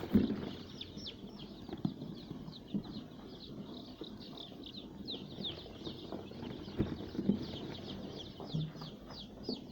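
Many five-day-old layer chicks peeping continuously, a dense stream of short, falling cheeps overlapping one another. Scattered soft knocks and rustling sound underneath, the loudest knock right at the start.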